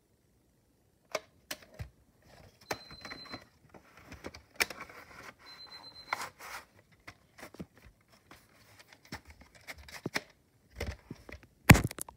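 Handling noise from a VHS cassette and its cardboard sleeve: scattered clicks, scrapes and rustles. The loudest sound is a knock near the end, as the tape box is set down.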